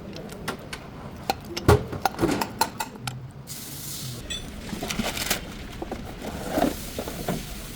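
Irregular metallic clinks and knocks, like hand tools being handled against metal parts, with a short hiss about halfway through.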